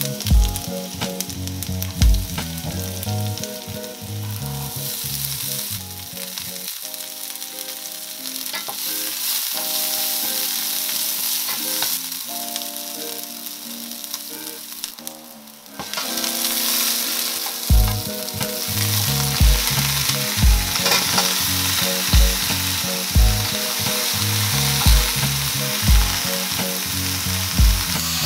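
Hot oil sizzling steadily in a stainless-steel frying pan as julienned ginger, scallions and garlic, and then lobster, fry in it. Background music with a soft beat plays over the sizzle.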